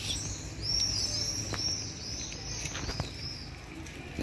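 A bird chirping: a quick run of short, high chirps that each rise and fall, with two sharp clicks in among them.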